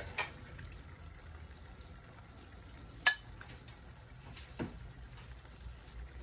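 A spoon stirring and scooping curry goat in a pan, with three sharp clinks of the spoon against the pan, the loudest about three seconds in.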